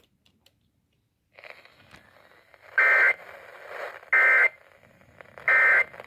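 Three short, loud bursts of Emergency Alert System SAME digital data tones over radio, about 1.3 seconds apart, with a faint radio hiss under them from about a second in. The bursts are short and come right after the warning message finished, as the end-of-message signal that closes an alert does.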